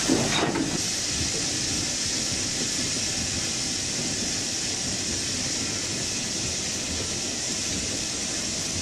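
Crushed-stone ballast pouring steadily from a railroad hopper car's open discharge chute onto the track, a continuous even rush of falling stone.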